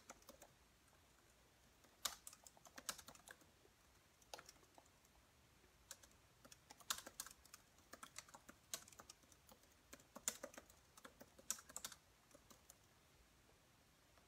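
Scattered light taps and clicks of typing, in short clusters with pauses between.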